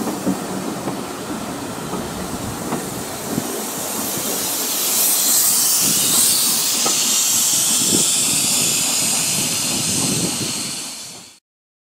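Coaches of a steam train rolling past, with a steady rumble and scattered clicks from the wheels on the rails. From about four and a half seconds in, a loud hiss of steam rises as the last coach passes with steam escaping from beneath it. The sound cuts off suddenly near the end.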